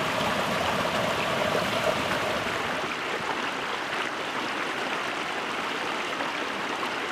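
Shallow stream flowing: a steady rush of running water.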